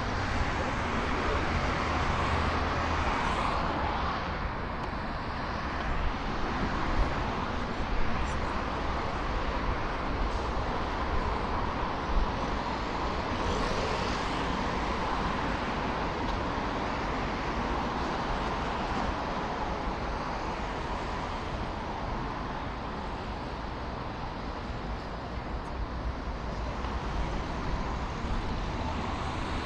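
City street ambience dominated by steady road traffic noise, with a low engine rumble from a nearby vehicle at the start and a few short sharp knocks partway through.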